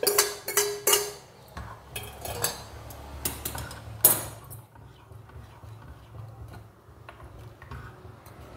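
Steel ladle scraping and clinking against a stainless steel pot as cooked dal is emptied into a clay pot, several ringing metallic knocks in the first second. More knocks follow, the loudest about four seconds in, then quieter stirring of the thick dal in the clay pot.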